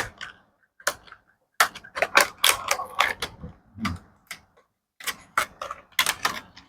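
Toy packaging being handled and opened: an irregular run of sharp clicks and crackles of plastic and cardboard, with a couple of short pauses.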